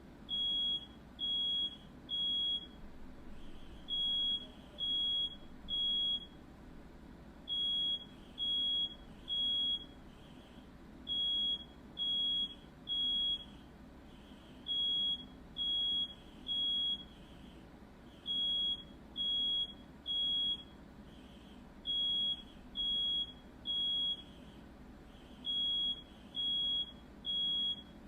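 Smoke alarm sounding the standard fire-alarm pattern: groups of three high-pitched beeps, each about half a second long, repeating every few seconds. A faint steady hum runs underneath.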